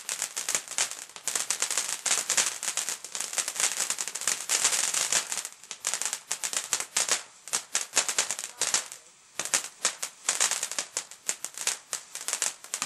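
Garden fountain firework spraying sparks: a dense, continuous crackling hiss of rapid little pops, dipping briefly about nine seconds in before picking up again.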